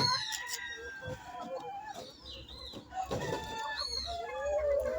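A flock of laying hens clucking and calling, many short overlapping calls, with one longer drawn-out call near the end.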